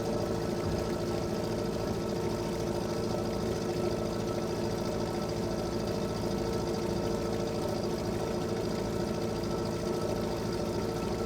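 Fishing boat engine running steadily at a low, even speed, a fast regular chugging with no change in pace.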